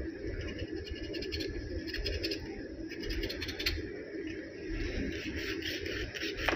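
Kitchen knife cutting and scraping through raw chicken on a plastic cutting board while the bird is deboned: scattered runs of small scrapes and taps, over a steady low background hum.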